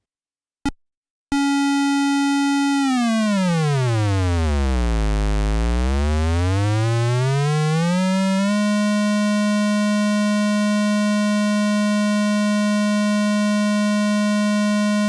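Eowave Orage analog complex oscillator's square-wave output, a buzzy tone rich in harmonics. It starts after a click, holds, sweeps down to a deep low buzz, rises back up and then holds a steady pitch before cutting off suddenly.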